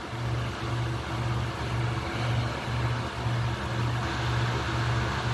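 A steady low machine hum that pulses about twice a second, over a steady hiss.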